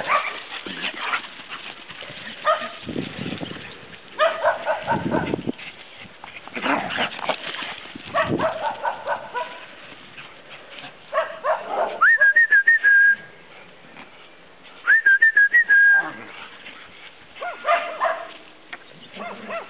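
Dogs barking and yelping in short bursts during play. Twice in the second half a person whistles a single note that rises and is then held, louder than the dogs.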